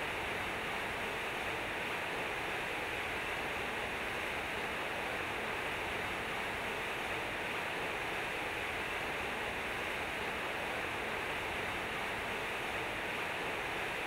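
Water pouring from concrete fountain spouts and splashing into the pool below: a steady, unbroken rush of falling water.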